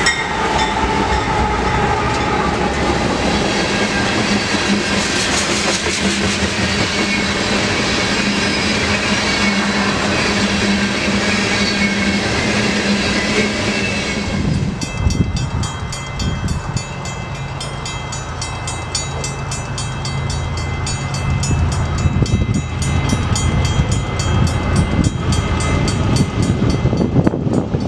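A freight train of tank cars rolls past hauled by CSX GE AC44CW diesel locomotives, its wheels clattering on the rails. About halfway through it gives way to an approaching Canadian Pacific freight with GE ES44AC and AC44CW diesels running, a low engine note with a fast regular clicking over it.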